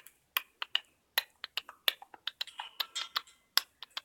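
A galah drumming with a stick and clicking a rhythm along with a person's clicks: a run of sharp clicks and taps, several a second and unevenly spaced.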